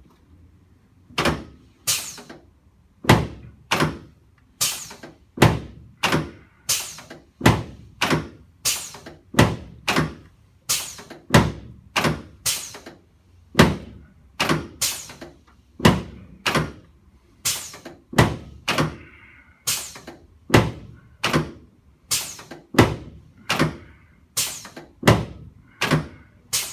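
A long run of sharp thuds from a chiropractic adjustment on the treatment table, evenly paced at a little over one a second and starting about a second in.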